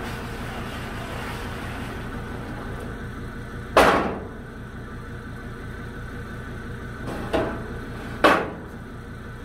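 Metal loading ramp being pulled down off the tail of a flatbed trailer: a loud ringing metal clang about four seconds in, then two more clanks near the end. An engine idles steadily underneath.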